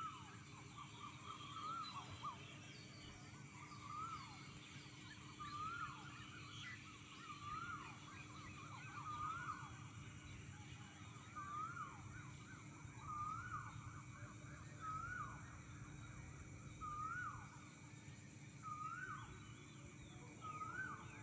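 Birds singing at dawn. One bird repeats the same short call about every two seconds, rising then dropping in pitch. Other birds call more faintly and higher behind it.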